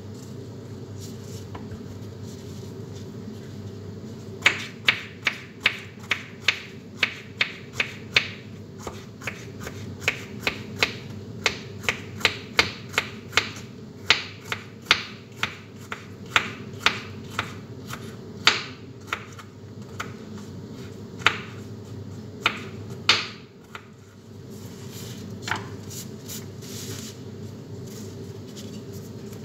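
Kitchen knife slicing bitter gourd (ampalaya) on a cutting board: a long run of sharp taps, about two or three a second, that stops a little before the end.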